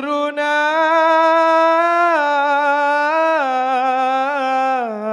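A single voice sings a long, held melismatic note in dikir barat style. The pitch steps down twice and breaks into small wavering ornaments near the end.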